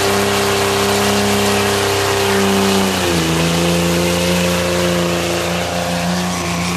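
Diesel pickup truck engine held at steady high revs in a burnout, dropping slightly in pitch about three seconds in, with a loud hiss over it.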